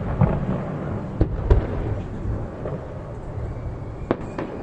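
Fireworks shells bursting overhead: several sharp booms, two close together about a second in and another near the end, over a low rolling rumble.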